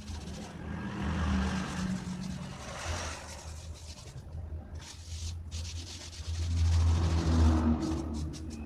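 Scratchy rubbing and dabbing of a hand working paint over a styrofoam board, under a steady low rumble that is loudest about a second in and again near the end.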